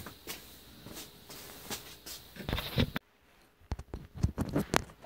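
Handling noise: scattered knocks and rustling for about three seconds, then, after an abrupt cut to a quieter background, a run of sharp clicks as fingers handle a thin wire close to the microphone.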